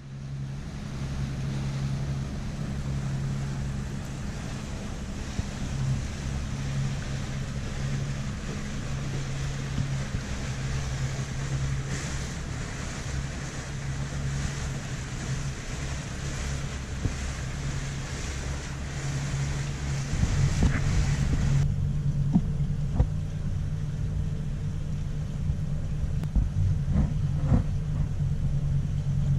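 Fishing boat's engine running steadily while underway, a low hum under the rush of wind and water. About three-quarters of the way through the rushing hiss drops away suddenly, leaving the engine hum and low rumble with a few knocks.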